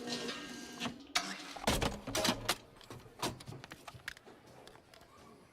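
Animated-film sound effects: a quick run of sharp clicks and knocks over the first few seconds, then fainter scattered taps.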